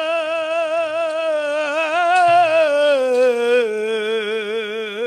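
A singer holds one long, drawn-out note with heavy vibrato in burrakatha style, stepping down to a lower note about three and a half seconds in.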